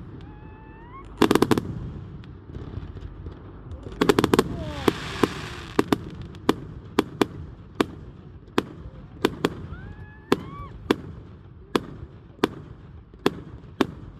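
Fireworks display: two quick volleys of loud bangs, a hissing crackle for a couple of seconds, then a steady run of single sharp bangs about every two-thirds of a second, with rising whistles mixed in.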